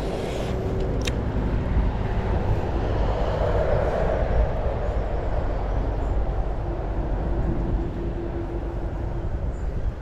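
Wind buffeting a body-worn camera's microphone: a steady, heavy rumbling rush. A short click comes about a second in.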